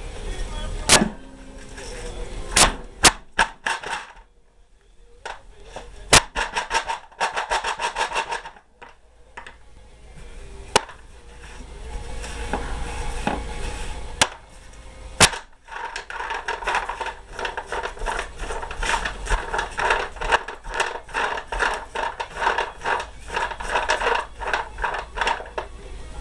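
Powder-coated wadcutter bullets clicking and rattling against one another as they are handled and moved about: a few separate sharp clicks, then long runs of rapid clicking.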